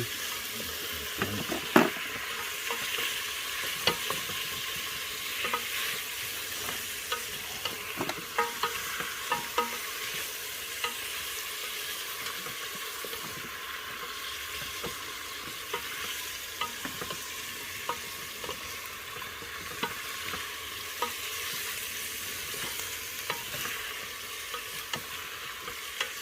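Food frying and sizzling in a hot pan while it is stirred, with scattered sharp clicks of the utensil against the pan, the loudest about two seconds in.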